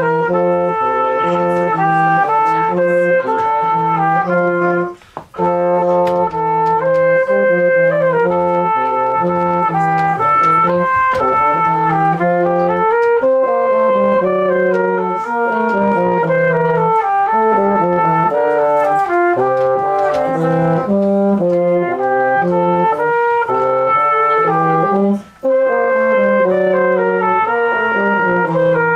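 Brass duet: a cornet plays the melody over a low brass horn's bass line, the two moving note by note together. The playing stops briefly twice, about five seconds in and near the end, between phrases.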